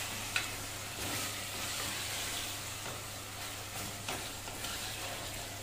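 Mutton, onions and tomatoes sizzling as they fry in oil in a pressure cooker, stirred with a wooden spatula, with a few light knocks of the spatula against the pot.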